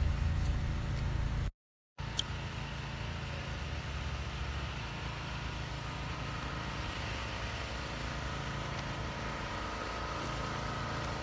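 Steady outdoor background rumble, heaviest in the low end, that cuts out completely for about half a second near the start and then carries on evenly.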